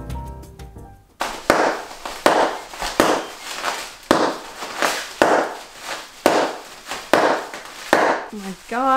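Bubble wrap being twisted and popped by hand: about a dozen sudden loud bursts of pops and crackles, spaced roughly half a second to a second apart. Background music fades out about a second in.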